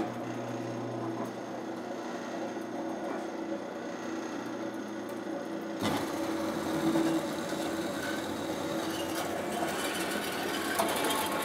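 Machine tool running steadily while cutting metal stock, changing abruptly in tone about six seconds in.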